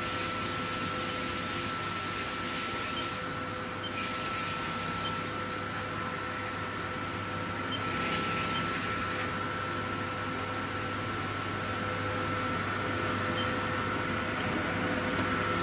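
Haas CNC mill drilling billet aluminium with a U-drill: a steady high-pitched cutting squeal over the machine's steady hum. The squeal breaks off briefly about four seconds in, stops near six seconds, comes back around eight and ends about ten seconds in, leaving only the hum.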